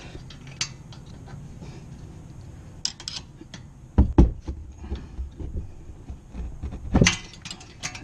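Hand tools working a rear brake caliper's lower guide-pin bolt: a 7 mm Allen wrench levered with a box-end wrench, metal clicking and clinking as the bolt is turned out, with a couple of louder knocks about four seconds in and again near the end.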